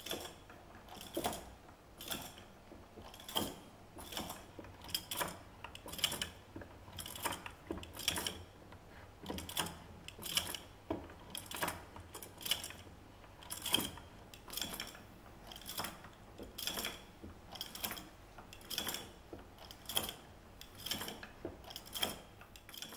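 Hand-cranked wooden automaton running, its carved wooden mechanism clicking and knocking in a steady rhythm of about three knocks every two seconds.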